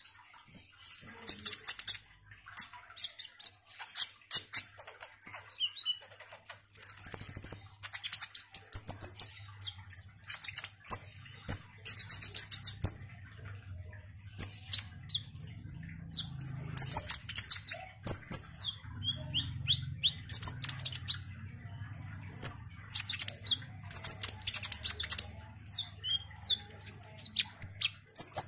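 Male Van Hasselt's sunbird (kolibri ninja) in full song: a rapid, high-pitched chattering of short chirps, trills and clicks, with a brief thin high whistle about seven seconds in.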